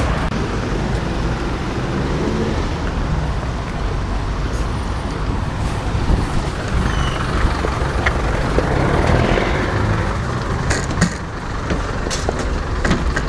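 Street traffic with a city bus's engine running nearby, a steady low rumble, and a few sharp clicks and knocks near the end.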